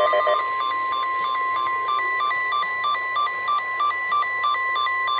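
NOAA Weather Radio 1050 Hz warning alarm tone, a single steady pitch, which cuts off near the end. Over it an electronic alarm beeps back and forth between two higher pitches about four times a second, signalling that a severe weather warning is being broadcast.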